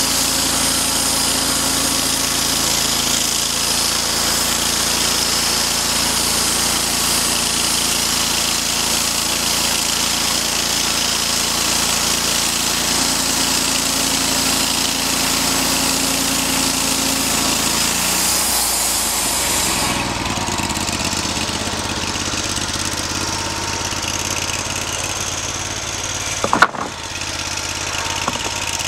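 Wood-Mizer portable band sawmill's engine running steadily under load as the band blade cuts pine, with a high hiss from the cut. About two-thirds of the way through, the engine note drops and the hiss fades as the cut ends and the mill settles to a lower idle. A single sharp knock comes near the end.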